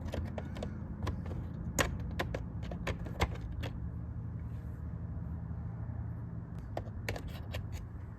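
Light metallic clicks and clinks of hand tools and small metal parts being handled, in scattered runs, over a steady low hum.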